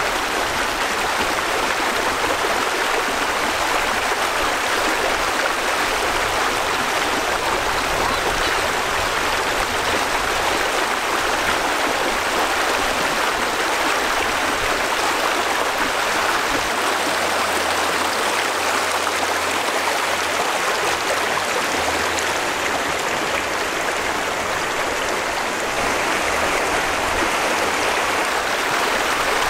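A shallow, rocky river running over stones: a steady rush of flowing water.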